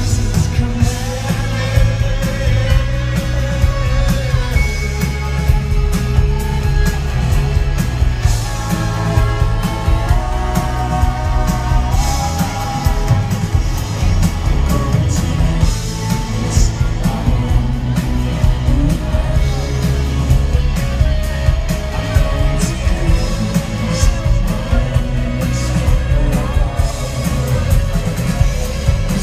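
Live rock band playing a song: a male lead vocal over electric guitar, drums and keyboards. The bass is heavy and loud.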